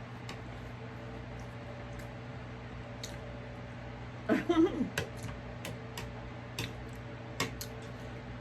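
Electric fan humming steadily, with scattered small clicks and smacks of eating, and a brief vocal sound about four and a half seconds in.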